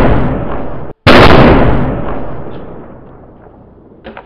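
A bullet bomb firecracker going off inside a homemade pipe shotgun: a very loud blast is cut off suddenly just under a second in, and a second blast follows straight after and dies away over about three seconds. A brief faint clatter comes near the end.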